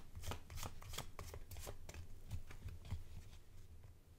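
A deck of Heartspun Tarot cards being shuffled by hand, overhand style: a quick run of soft card slaps and clicks that thins out near the end.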